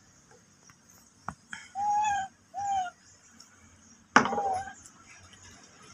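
A baby macaque giving short, high, arched coo calls. Two come close together about two seconds in, and a third follows a sharp knock a little after four seconds.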